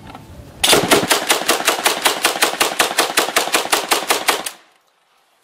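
AA-12 fully automatic 12-gauge shotgun firing one long burst into a door, about six shots a second, for nearly four seconds. The burst starts a little way in and cuts off suddenly near the end.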